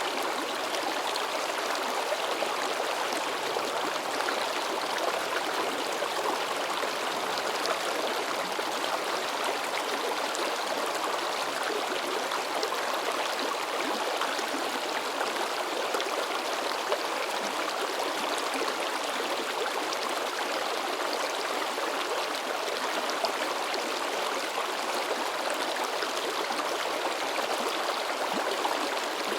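A river babbling and splashing in a steady, unbroken rush of water.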